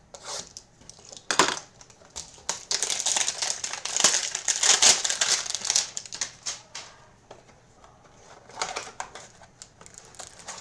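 Crinkling and tearing of trading-card packaging handled and opened by hand, with scattered clicks. The crackling is densest from about two and a half to six seconds in, then it eases to lighter handling.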